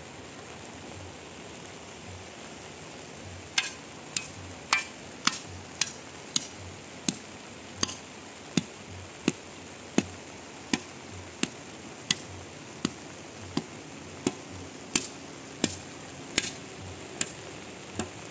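Steady hiss of rain, then from about three and a half seconds in a long run of sharp, evenly spaced knocks, about three every two seconds, as a long wooden pole is struck down again and again.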